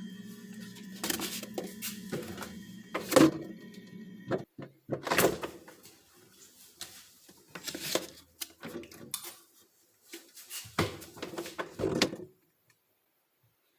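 A door or drawer opened and closed amid short knocks and rustles of things being handled. A steady low hum runs under the first few seconds and cuts off suddenly.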